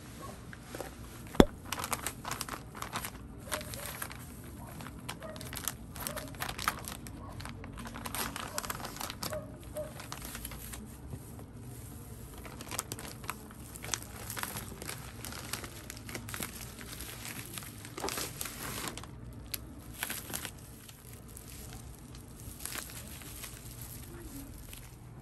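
Plastic courier mailer bag crinkling and rustling as it is handled and torn open, followed by bubble wrap rustling as a wrapped box is pulled out. A single sharp snap about a second and a half in is the loudest sound.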